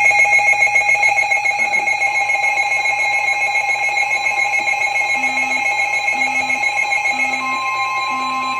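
Several NOAA weather radio receivers alarming together for a severe thunderstorm warning. A loud, wavering electronic alarm tone sounds throughout, joined by a steady high tone from about 2 s in that gets louder near the end, and by short low beeps about once a second from about 5 s in.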